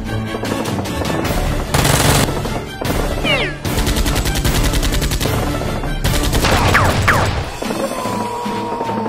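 Automatic gunfire sound effects: scattered shots, then a long rapid burst of evenly spaced shots in the middle with a couple of falling whines, over background music.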